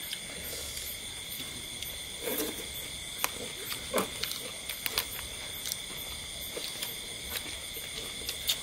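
Chewing and lip-smacking, with scattered sharp clicks, as people eat grilled duck by hand, over a steady chorus of night insects.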